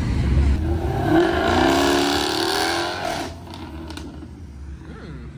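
Sports car engine revving as it pulls away, its pitch rising and then easing. About three seconds in it cuts off abruptly, leaving a quieter, distant engine sound.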